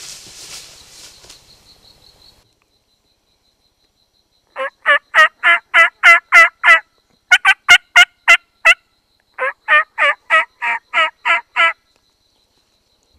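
Three loud runs of hen-turkey yelps on a turkey call, each run eight to ten evenly spaced notes at about four to five a second, with short silent gaps between them.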